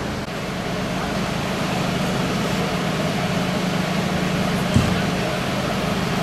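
Steady low drone of fire engines running at the scene, with one short knock about five seconds in.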